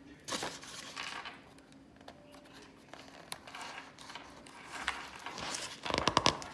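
Paper rustling as a book page is handled, with a louder, quick run of crinkles and flicks near the end as the page is turned.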